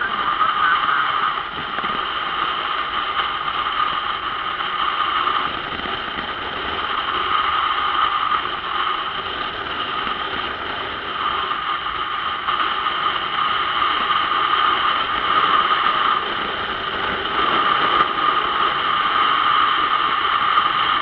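Steady rushing wind noise on the microphone of a camera mounted on a moving sport motorcycle, together with road noise.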